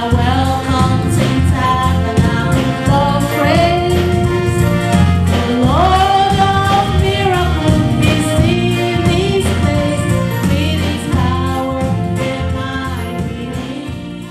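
Gospel song with sung vocal lines over a steady bass, fading out near the end.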